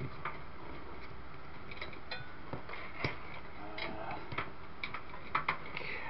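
Scattered light clicks and ticks of power-supply cables and their plastic connectors knocking against a metal PC case as the cables are tucked into place, the sharpest about three seconds in and twice near the end.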